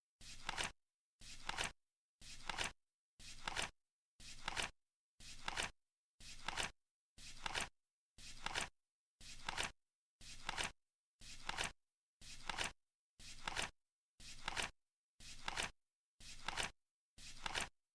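Flip-clock timer flipping once a second: each flip is a short rustle that builds to a sharp click, with dead silence between flips.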